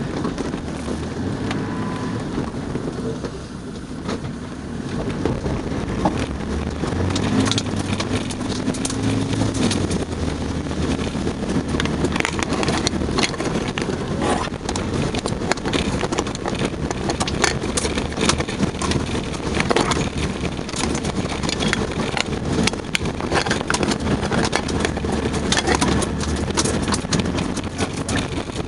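4x4 driving slowly over a loose gravel riverbed: the engine runs low and steady under tyre noise on the stones. Frequent sharp clicks and knocks come as the vehicle bumps over the gravel, growing denser about halfway through.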